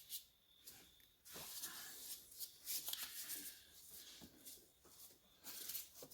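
Faint, intermittent scraping and rustling of hands working engine parts and a hose into place.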